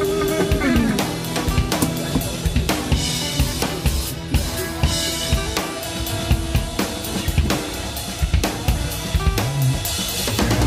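Rock music with the drums to the fore: a busy run of rapid drum and cymbal hits, with a held note sliding down near the start.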